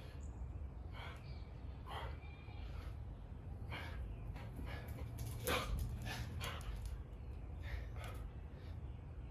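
Hard, sharp breaths of a man grinding out push-ups, roughly one a second, with the loudest about five and a half seconds in, over a steady low rumble of street noise.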